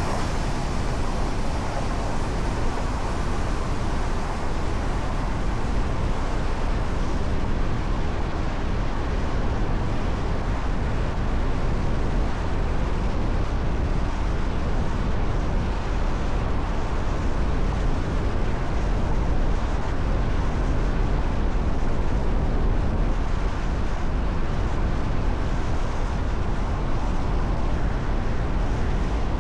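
Steady road and wind noise of a car driving at speed, a constant low rumble with no changes.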